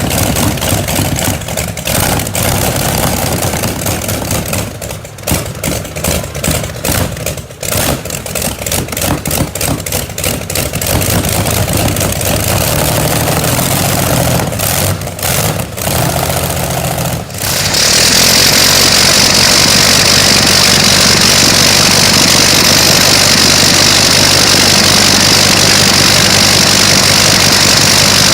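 An engine running unevenly, its sound dipping and surging irregularly. About two-thirds of the way in it gives way to a steadier, louder engine sound with a strong hiss over it.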